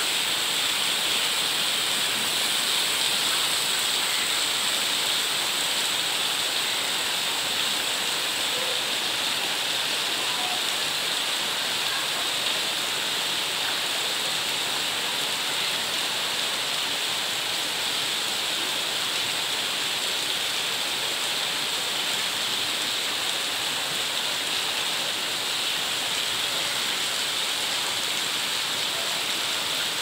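Steady rain falling through tree leaves: an even, unbroken hiss of downpour.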